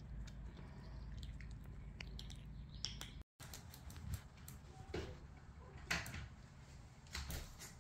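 Faint small ticks of a kitten eating dry kibble from a stainless steel bowl, then, after a cut, light clicks and knocks as a kitten bats at a plastic ball-track tower toy, strongest at about five and six seconds in.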